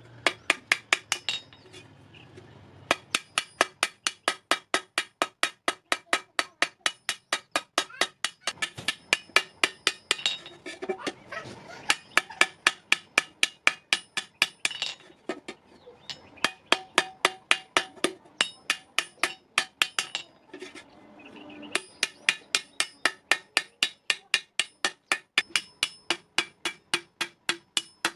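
Hand hammer beating the rim of an iron thali against the edge of an anvil: quick, ringing metal-on-metal strikes about four a second, in runs broken by a few short pauses.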